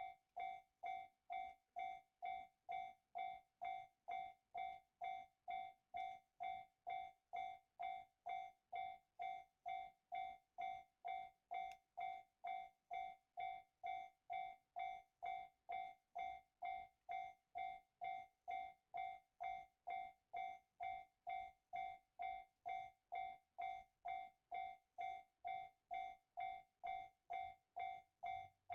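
Japanese railway level-crossing alarm ringing: a single electronic bell tone repeating evenly about two and a half times a second, the warning that a train is approaching.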